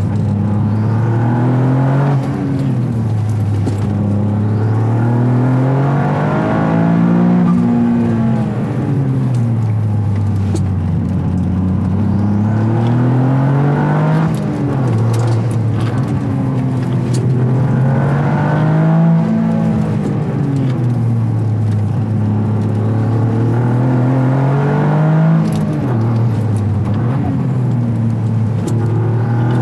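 Toyota GR Yaris's turbocharged 1.6-litre three-cylinder engine heard through an aftermarket intake airbox, accelerating repeatedly: the pitch climbs over several seconds and then drops at each shift or lift-off, about five times. Several of the drops bring a short whoosh from the turbo's blow-off valve.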